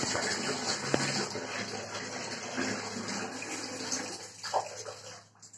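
Steady rush of running water, with a faint knock about a second in; the water sound stops abruptly near the end.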